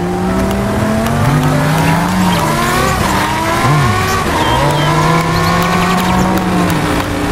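Car engine revving sound, its pitch climbing and dropping several times, with a couple of quick dips in the middle.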